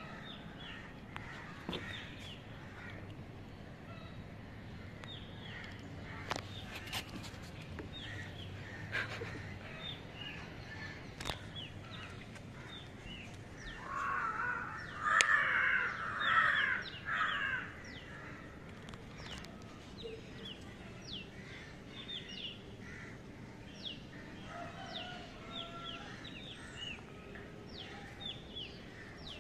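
Birds calling outdoors: short high chirps repeat throughout, with a louder burst of calls from about 14 to 18 seconds in. A few sharp clicks are heard along the way.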